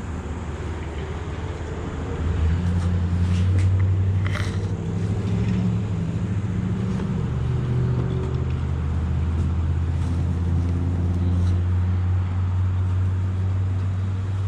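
Motorcycle engine running. It picks up revs about two seconds in and then holds steady, with a few brief clicks around four seconds in.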